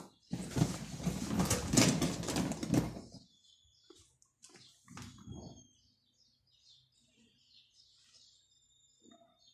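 Loud rustling for about three seconds, then faint high chirping of birds.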